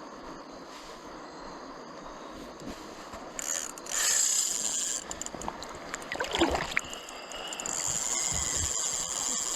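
Small ultralight spinning reel's drag buzzing as a hooked trout pulls line off it, starting about three and a half seconds in, easing, and buzzing again near the end, over the steady rush of river water.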